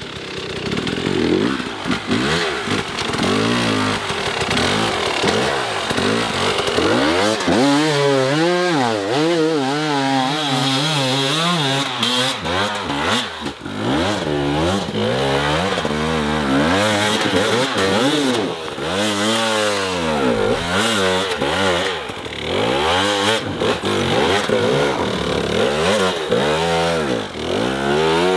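Husqvarna two-stroke enduro dirt bike revving hard on a climb, the engine pitch swinging up and down again and again as the throttle is worked on and off.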